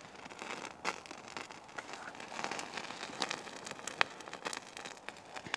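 Fibre cigar tinder and paper burning in open flame, crackling and snapping with irregular sharp pops, the loudest about four seconds in.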